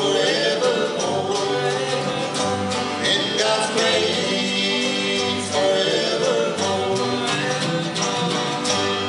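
Bluegrass band playing a country gospel song on acoustic guitars, fiddle, banjo and mandolin, in its closing bars.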